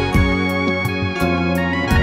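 Instrumental passage of a Hindi-language pop song with no singing: held, steady chords over a regular drum beat with deep kick drums and cymbal hits.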